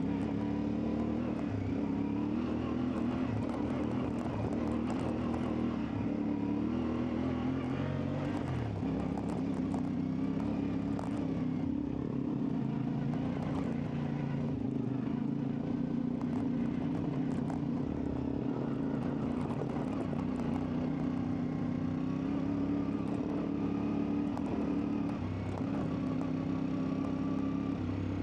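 CFMoto 450MT's parallel-twin engine running under way while the motorcycle is ridden off-road, its pitch rising and falling with throttle.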